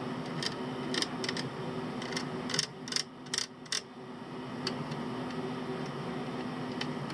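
Small sharp clicks and taps of metal tools working on a multimeter's circuit board, clustered between about one and four seconds in, over a steady fan-like hum that drops out briefly about three seconds in.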